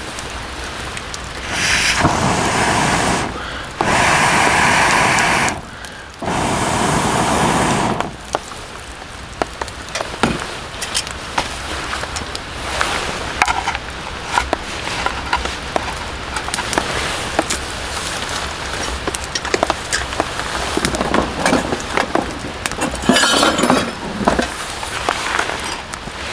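Raindrops tapping irregularly on a canvas tent's fabric, with three loud hissing bursts of about a second and a half each in the first eight seconds.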